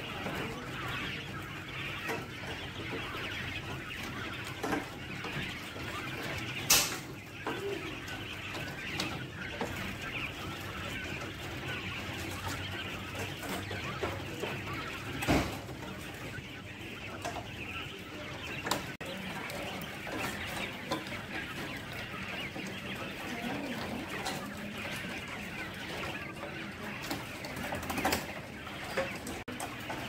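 A cage of young Japanese quail keeping up a continuous chorus of small calls and chirps, broken by a few sharp knocks, the loudest about a quarter and about half of the way through.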